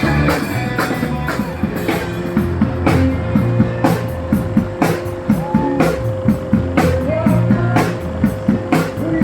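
Instrumental stretch of a pop-rock song, with drums keeping a steady, even beat over a low bass line.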